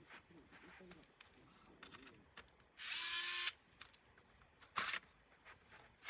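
Small electric screwdriver whirring once for under a second, backing a screw out of a laptop's case during disassembly. Light clicks from handling parts come before it, and there is a sharper click or tap about a second and a half after it.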